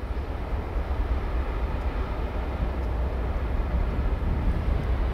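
Steady low rumble of the ferry Isle of Inishmore as it departs under power.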